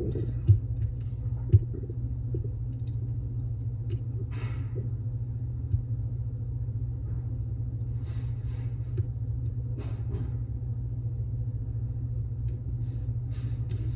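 Lock picking in a Mul-T-Lock Classic Pro: a few faint metallic clicks and scrapes of the pick on the pins, over a steady low hum.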